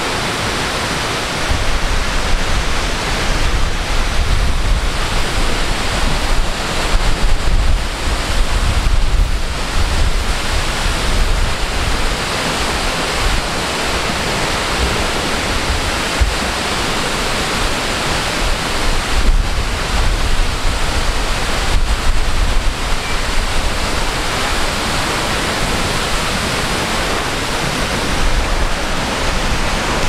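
A waterfall about 80 metres tall plunging into its pool: a loud, steady rush of falling water. Uneven gusts of wind buffet the microphone with a low rumble.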